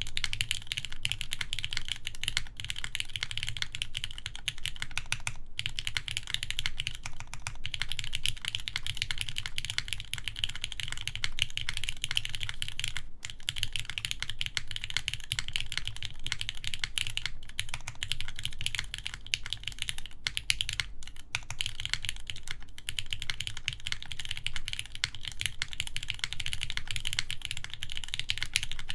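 Continuous steady typing on a mechanical keyboard with lubed Gateron X linear switches, a full aluminium plate and GMK keycaps, with a few brief pauses.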